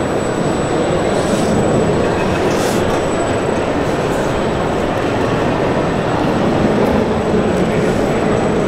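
Steady, even rumbling din of a large indoor exhibition hall, with no clear pitch and no sudden sounds.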